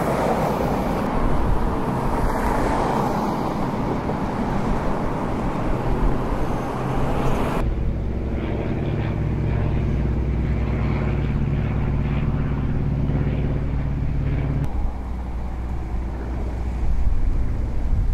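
Vehicle engines running at idle: a rough rumble with hiss, then, after an abrupt change about eight seconds in, a steady low engine hum that cuts off suddenly about fifteen seconds in.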